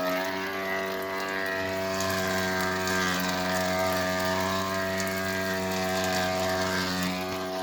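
Electrolux washing machine making a steady, buzzy mechanical hum at one constant pitch, with a lower hum coming in about a second and a half in. The owner says it keeps running even with the power to the whole house shut off.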